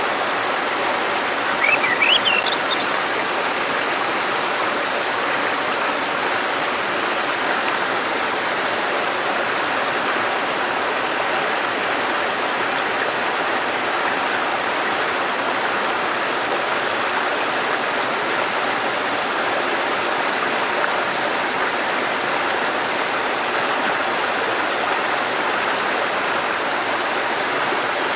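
A shallow river babbling and murmuring steadily over stones. About two seconds in, a brief run of high rising notes sounds above the flow.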